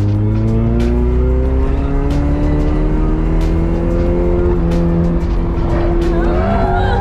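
Toyota AE86 drift car's engine heard from inside the cabin under load, its note climbing slowly and steadily for several seconds, then dipping briefly and rising sharply near the end.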